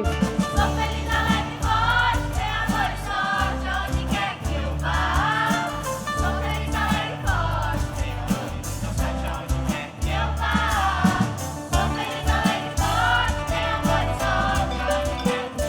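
Music with singing voices over a steady bass line and a regular beat.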